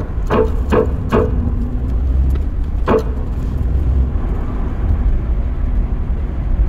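Steady low engine and road rumble inside the cabin of a Rover on the move. The last few plucked notes of music are heard in the first three seconds.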